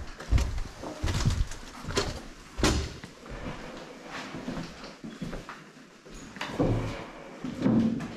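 Footsteps of several people walking over a debris-strewn floor: irregular thuds and scuffs roughly once a second, with a few louder knocks.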